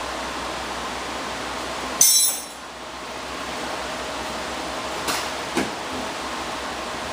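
Steady hiss, broken about two seconds in by one sharp, ringing metallic clink, the loudest sound here, and two softer clicks around five seconds later.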